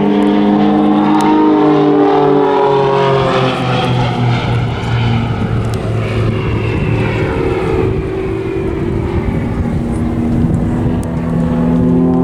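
Extra 300 NG aerobatic aircraft flying a display, its piston engine and propeller droning loudly. The engine tone weakens and shifts in pitch through the middle as the aircraft manoeuvre, then comes back strong and steady near the end.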